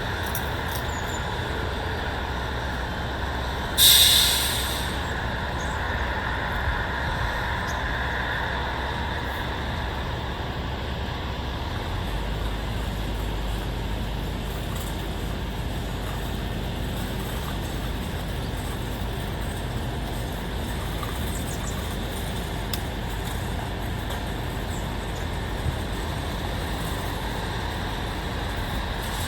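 Steady distant road traffic rumble, with one sudden loud hiss about four seconds in that fades over about a second. The low rumble grows heavier about twelve seconds in.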